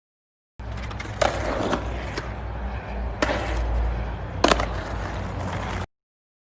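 A steady low rumble with three sharp clacks, the first two about two seconds apart and the third a little over a second later, and a few lighter clicks between; it starts and cuts off abruptly.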